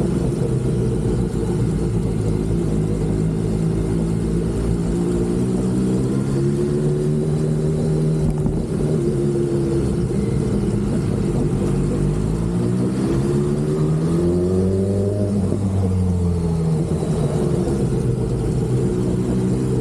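BMW S1000RR inline-four engine running under way, its pitch rising and falling with throttle and gear changes; the longest climb peaks about 15 s in and drops sharply, then rises again.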